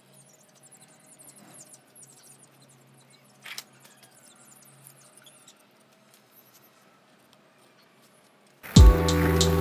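Faint scraping and light taps of a small steel trowel smoothing wet cement, with one sharper tick about three and a half seconds in and faint high chirps. Background music with a beat starts abruptly about a second before the end and is the loudest sound.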